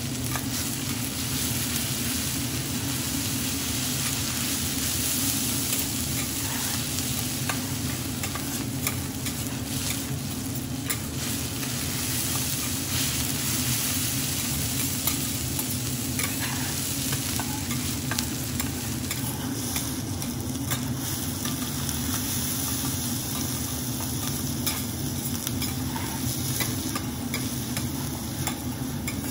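Fried rice sizzling steadily in fat on a flat-top griddle, with frequent sharp clicks and scrapes of metal spatulas pressing and turning it against the hot plate.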